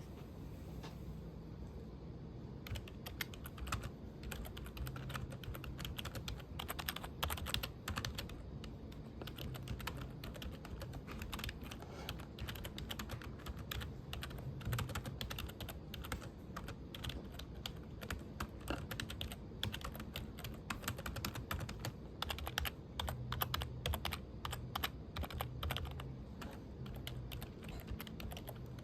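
Typing on a computer keyboard: a steady stream of quick key clicks that starts a couple of seconds in, with a low hum underneath.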